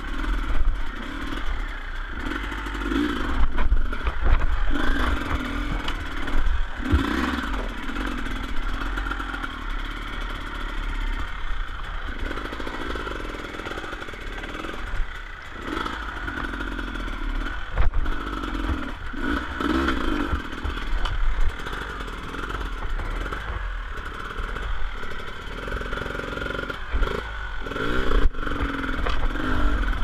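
2015 Beta 300 RR two-stroke dirt bike engine running at low revs with uneven swells of throttle as the bike is ridden slowly over a rocky stream crossing. Scattered knocks and clatter come from the bike over the rocks.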